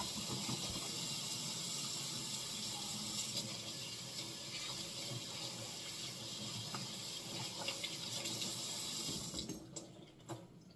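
Tap water running steadily into a sink as hands are washed under it; the water shuts off near the end.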